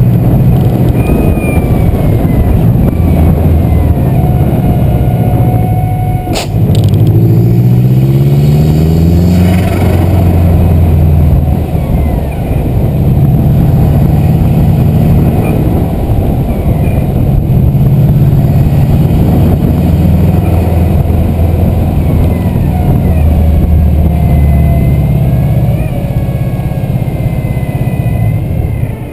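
Turbocharged engine of a stage 2 tuned Subaru WRX driving on the road, running at a steady pull. About six seconds in there is a sharp click and a brief dip, and then the engine pitch climbs for a couple of seconds as it revs up.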